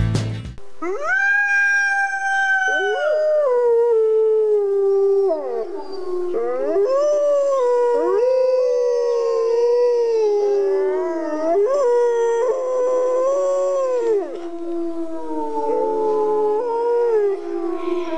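A pack of wolves howling: several long howls overlap, each gliding up and down in pitch.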